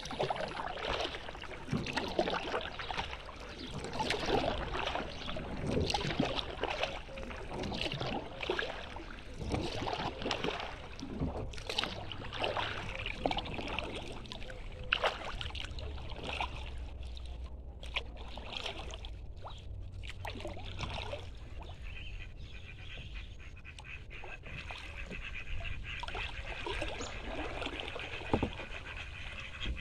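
Kayak paddle strokes dipping into calm lake water, with splashing and water dripping and trickling off the blades, in an irregular rhythm.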